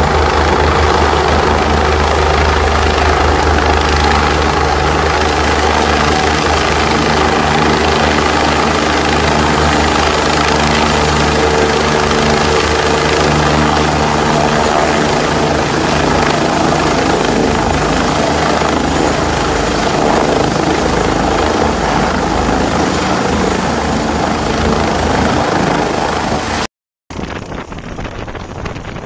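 Air-ambulance helicopter close by, rotor and turbine running loud and steady with a high, thin whine above the rotor noise. About two seconds before the end the sound breaks off and a quieter helicopter idles on the ground, with wind on the microphone.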